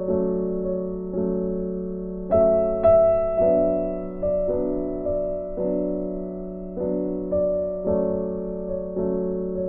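Slow background piano music: single notes and chords struck about once a second, each left to ring and fade.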